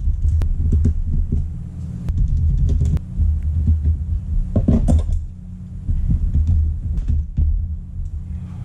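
Hand-work on a plastic HP laptop case: light clicks and knocks as Torx screws are undone and the case is handled and pried apart, with a short clatter of plastic about halfway. A steady low hum runs underneath.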